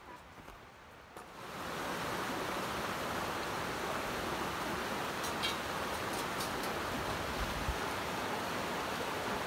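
Steady rush of flowing water, fading in about a second and a half in and holding even.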